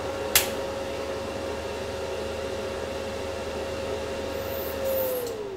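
Stahlwerk MIG MAG 200 Puls Pro inverter welder powering down after being switched off. Its cooling fan runs with a steady whine, with a sharp click about a third of a second in. Near the end the whine falls in pitch and the fan noise dies away.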